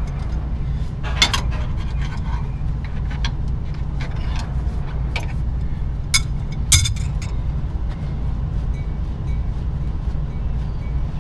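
A hand wrench clinking and scraping against air-line fittings as a cracked air brake hose is unscrewed from a truck's chassis: a scattering of short sharp metal clinks, loudest a little past halfway. Under them runs a steady low rumble.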